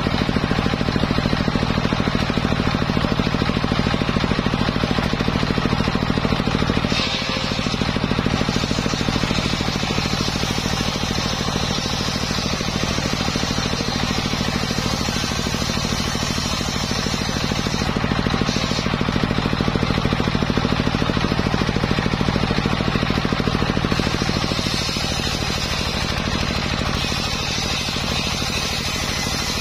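Homemade table circular saw ripping a jackfruit-wood plank lengthwise: the saw's drive runs steadily with a rapid low pulsing while the blade cuts through the timber, the sound dropping a little about seven seconds in and again near the end.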